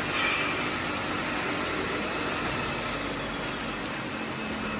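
Machinery running steadily: an even hiss with a faint low hum.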